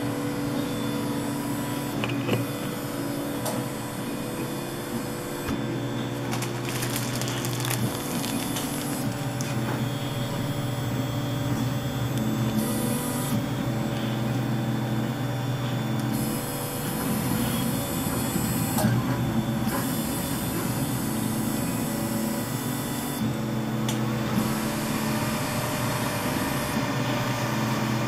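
Large gantry FDM 3D printer running a print: its motors whine in tones that keep stepping up and down as the print head shuttles across the bed, over a steady hiss.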